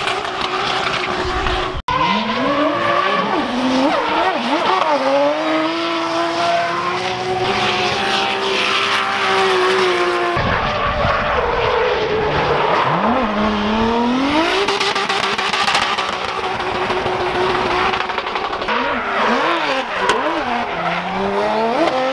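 BMW drift cars sliding sideways, their engines revving hard with pitch rising and falling again and again over the continuous hiss and squeal of spinning tyres. The sound breaks off for an instant about two seconds in and changes abruptly about ten seconds in, where one clip is cut to the next.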